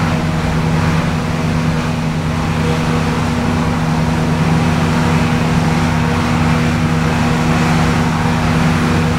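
Steady low hum of building machinery under a haze of hurricane wind and rain.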